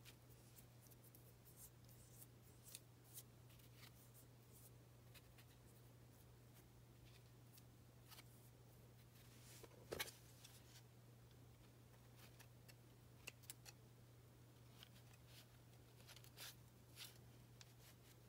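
Near silence over a steady low hum, with faint scattered clicks of hands handling feathers and ribbon, and a single louder scissor snip about ten seconds in.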